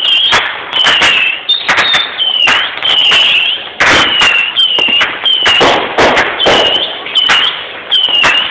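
Consumer fireworks firing in quick succession, about two sharp bangs a second, each trailed by a short high whistle.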